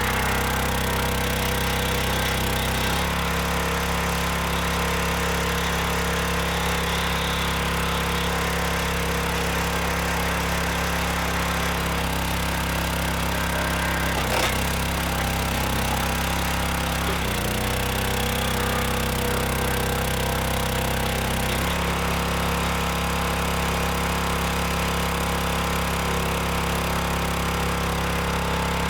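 Small gas engine of a 25-ton log splitter running steadily under the hydraulic pump, its note shifting a few times, with a single sharp crack about halfway through.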